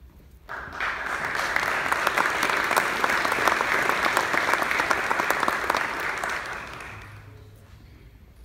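Audience applauding. It starts about half a second in and dies away around seven seconds.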